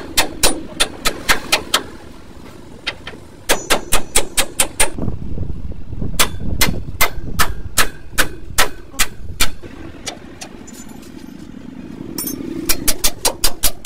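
Hammer blows on steel during truck leaf-spring work, struck in quick runs of about three or four a second with short pauses between runs.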